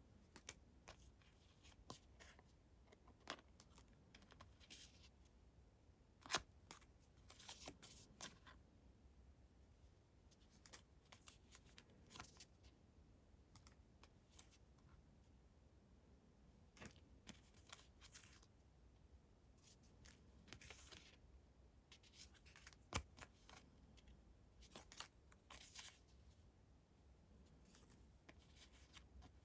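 Faint, scattered clicks and short rustles of LEGO minifigure pieces and packaging being handled, with a few sharper clicks standing out, loudest about six seconds in and again past twenty seconds.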